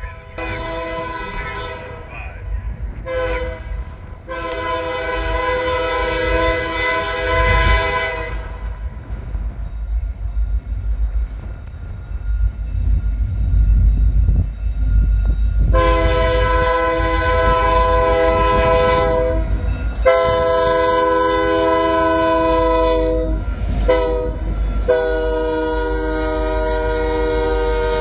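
A Canadian National freight diesel locomotive's multi-chime air horn blows repeated long blasts at a grade crossing, with the low rumble of the train in between. Near the end it sounds the crossing warning pattern of long, long, short, long.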